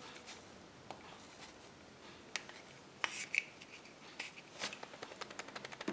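Hands breaking open a Kinder Surprise chocolate egg and taking out the yellow plastic toy capsule: sparse faint clicks and taps, a brief high squeak about three seconds in, and a quicker run of small clicks near the end.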